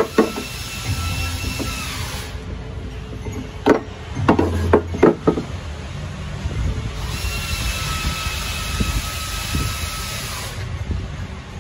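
Repair-shop noise: a steady high-pitched whine that stops about two seconds in and comes back near seven seconds, with a quick run of sharp knocks a little before the middle.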